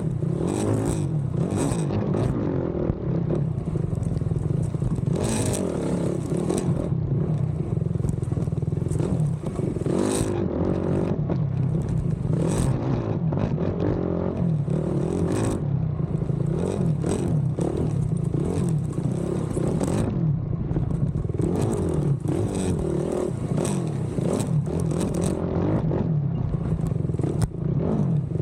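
Race ATV engine heard from on board, revving up and falling back over and over as the quad is ridden hard over a rough trail, with frequent clattering knocks from the machine and terrain.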